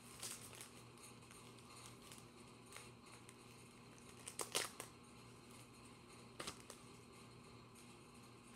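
Trading cards being handled and slid about in a quiet room: a few soft short rustles and taps, the clearest about four and a half seconds in, over a faint steady hum.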